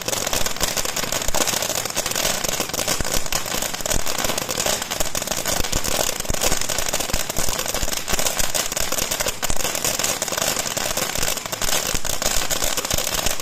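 Several ground fountain fireworks burning at once, giving a continuous hissing crackle of rapid fine pops without a break.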